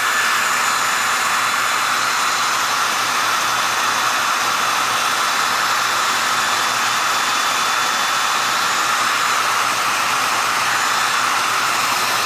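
Handheld Conair hair dryer running on its high setting: a steady rush of air with a faint, even motor whine.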